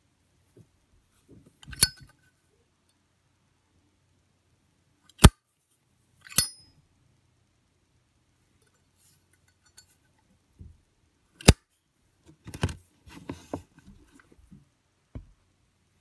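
Brushed-chrome Zippo 200 windproof lighter being handled: its hinged metal lid clicks open and snaps shut with several sharp metallic clinks, a couple of them ringing briefly. Softer handling noises come in between.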